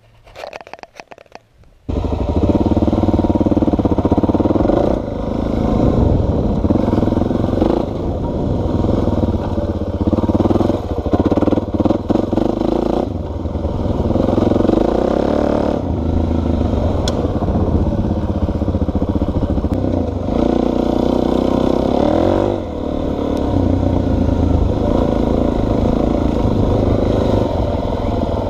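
Suzuki DR-Z400's single-cylinder four-stroke engine running as the dirt bike is ridden, the revs rising and falling through the throttle and gear changes, heard close from a camera on the bike. It comes in abruptly about two seconds in, after a little faint clattering.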